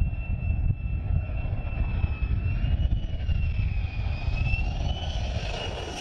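F-35A Lightning II's jet engine (Pratt & Whitney F135 turbofan) running: a steady low rumble under a high whine that wavers in pitch, the whine growing brighter in the last couple of seconds as the rumble eases.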